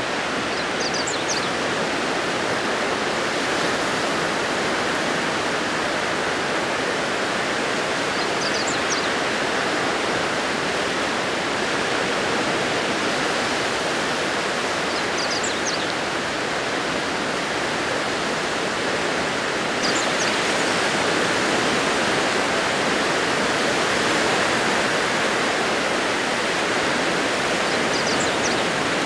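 Small waves breaking on a sandy beach, a steady hiss of surf, with a faint high chirp every several seconds.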